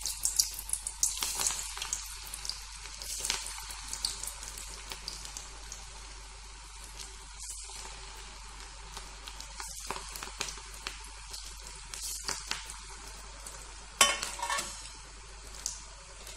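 Ambode (lentil-and-rice fritters with cassia tora leaves) deep-frying in hot oil in an iron kadai: a steady sizzle full of crackling pops, busiest in the first few seconds as the fritters go in, with a sharper, louder burst of crackling about 14 seconds in.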